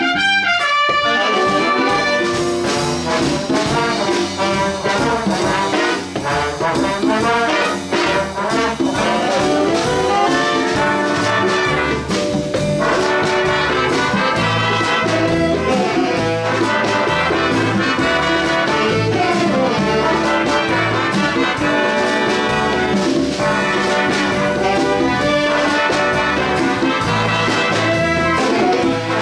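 Big band playing jazz, with trumpets, trombones and saxophones sounding full ensemble lines over bass and drums.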